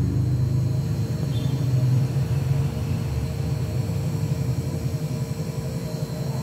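Steady low rumbling hum of a running machine, with faint steady high-pitched tones above it.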